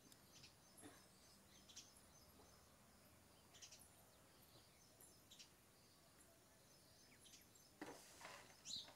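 Near silence: faint background noise with a few brief, faint high chirps now and then, a little more frequent near the end.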